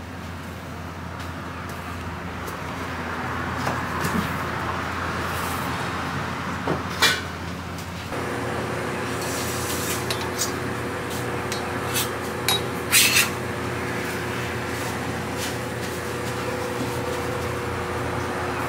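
Crepe-making counter ambience: a steady hiss and hum while batter is spread and cooks on the griddle, with a few sharp clicks and knocks of utensils, the loudest a little after seven and thirteen seconds in. About eight seconds in a steady two-tone hum starts and holds.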